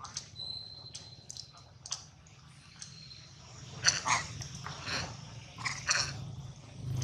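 Soft clicks and smacking sounds at close range from a long-tailed macaque mother and her clinging infant, with a few sharper smacks about four and six seconds in. A faint thin high whistle comes and goes in the first three seconds.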